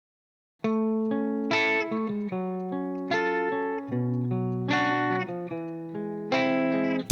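Music: a guitar picking a melody of single ringing notes, starting about half a second in after silence.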